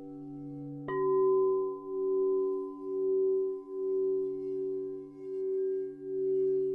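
Singing bowls ringing. About a second in, a bowl is struck and its tone rings on with a slow, even wavering about once a second, over the steady tones of bowls already sounding.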